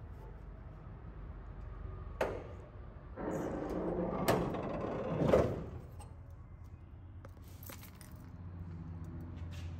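Steel hood of a 1971 Plymouth Duster being unlatched and raised: a sharp click about two seconds in, then a few seconds of metallic rattling and knocks as it swings up, loudest about five seconds in.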